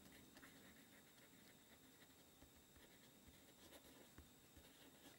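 Near silence, with the faint sound of a felt-tip marker writing on paper.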